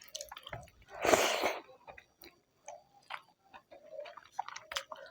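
Quiet eating sounds: a person chewing a mouthful of rice and curry, with scattered small wet mouth clicks and smacks and a short breathy rush about a second in.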